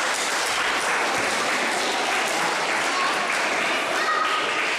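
Small crowd applauding and cheering in a steady burst, with a few shouting voices near the end.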